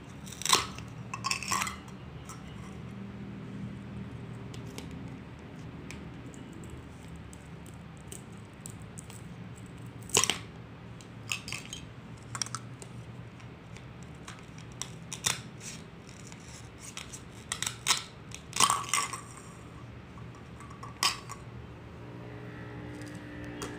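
Plastic toy fruit pieces and a plastic toy knife clicking and knocking against each other and a plastic cutting board: about ten scattered sharp taps and clacks with pauses between them, over a steady low hum.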